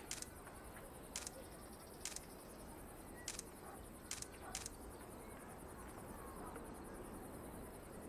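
Smartphone camera shutter clicking six times at uneven intervals, about a second apart, stopping about four and a half seconds in, over a faint steady background.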